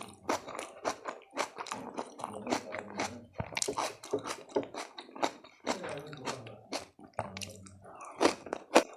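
Close-miked chewing of a mouthful of food, with irregular crunches and mouth clicks, a few each second.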